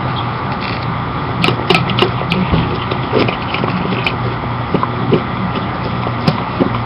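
Morkie dog licking and eating from a stainless steel bowl, with irregular clicks and taps of tongue and teeth against the metal, over a steady low background hum.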